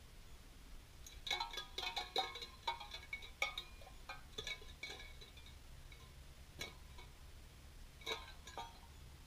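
Empty tin cans clinking and rattling against each other: a quick run of ringing metallic knocks for about four seconds, then a few single clinks near the end.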